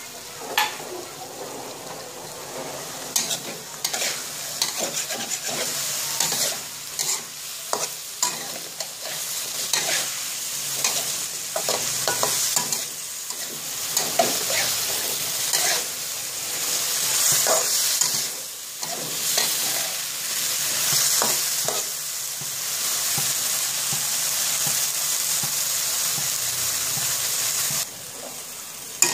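Fish, tomatoes and long beans sizzling in a hot wok while being stir-fried, a spatula knocking and scraping against the wok many times. The sizzle drops away about a second before the end.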